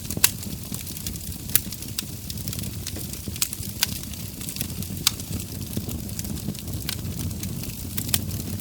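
Wood fire burning in a brick heat-storage fireplace stove: a steady low rumble of flame with irregular sharp crackles and pops of burning wood, the loudest pop about a quarter second in.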